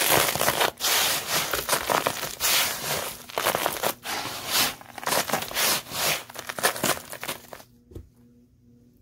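Dry dusty dirt mixed with confetti and glitter, poured and crumbled by hand, crunching and crinkling in irregular bursts. It stops about three-quarters of the way through, leaving only faint steady tones.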